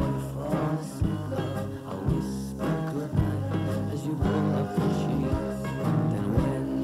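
A folk-rock band recording: guitar and bass over drums keeping a steady beat, with hits about once a second.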